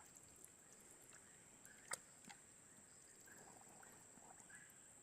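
Near silence: faint background with a steady high-pitched tone and a few faint chirps, broken by one sharp click about two seconds in.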